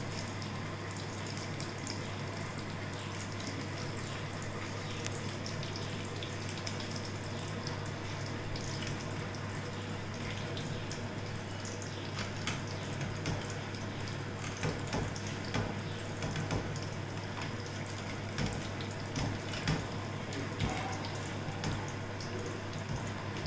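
Hot oil sizzling steadily as battered chilli fritters (mirchi bajji) deep-fry, over a low steady hum, with a few light utensil clicks in the second half.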